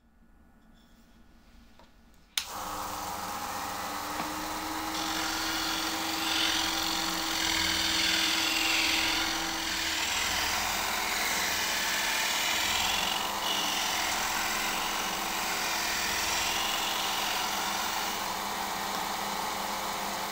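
Homemade disc sander switched on with a click about two seconds in, its motor coming up to speed with a steady hum, then a plywood part pressed against the spinning sanding disc, adding a loud rasping hiss of abrasive on wood.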